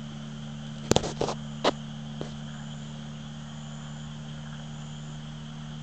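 Crickets chirping steadily over a steady low hum, with a few sharp clicks or knocks between one and two seconds in.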